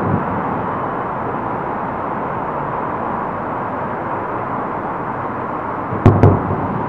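Distant fireworks: a steady hiss of background noise, then about six seconds in two sharp firework bangs a quarter second apart, each with a low rumble.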